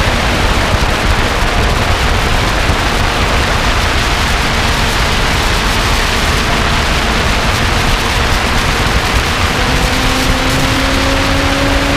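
Lotus sports car at speed on a racing lap: a dense, steady rush of wind and road noise, with the engine's note faint underneath and climbing slowly through the last few seconds as the car accelerates.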